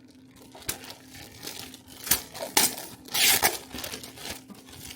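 Packaging being handled, crinkling and rustling: a few sharp crackles, then a longer rustle about three seconds in.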